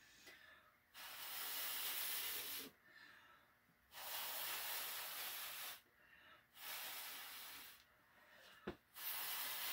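Hard mouth-blown breaths pushing wet acrylic paint across a board: four long rushes of air, each a second or two, with short pauses for breath between them. A brief low pop comes just before the last blow.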